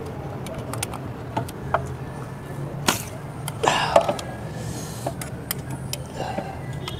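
Hand work on car engine parts while a part is being removed: scattered sharp clicks and clinks of tools and parts, with a louder scraping swish about three and a half seconds in, over a steady low hum.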